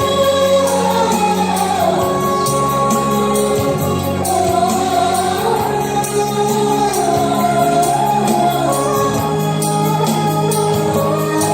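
A song with a sung melody over a steady instrumental accompaniment with a regular beat.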